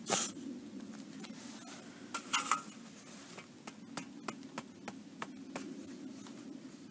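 Sand and gravel being scraped and packed by hand under a steel screed bar: a sharp scrape right at the start, another scraping burst about two seconds in, then a run of light clicks and ticks as stones shift.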